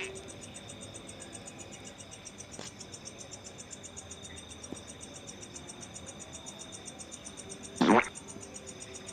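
Night insect chorus: a fast, even high-pitched pulsing with a steady high whine beneath it. A short loud noise breaks in about eight seconds in.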